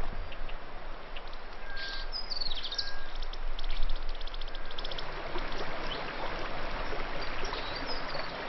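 Forest birds calling: fast series of high chirps and a few short whistles. From about five seconds in, the rushing of a rocky mountain stream grows and takes over.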